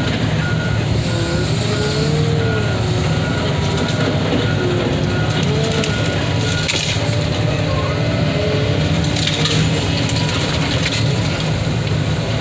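CAT excavator's diesel engine running steadily under load, with a whine that wavers up and down in pitch, and crunching and a few sharp cracks as the machine breaks and crushes material.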